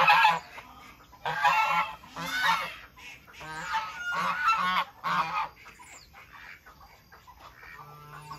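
Egyptian geese honking, a run of repeated calls that dies away about halfway through.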